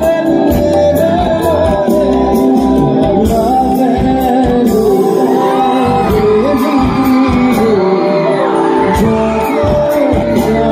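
Live band music through a large PA system: a male singer singing over drums, electric and acoustic guitars and keyboards, loud and continuous, with crowd shouts mixed in.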